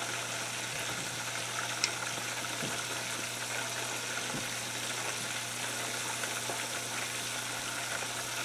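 Chicken pieces frying in hot oil in a deep pot, a steady sizzle and bubbling. There is a single light click about two seconds in.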